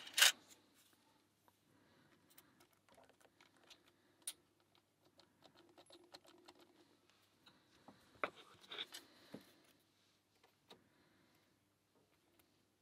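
Lock pick and tension tool working in a pin-tumbler lock: scattered light metallic clicks and scrapes. There is a sharper click at the start, another about four seconds in, and a short flurry of clicks around eight to nine seconds.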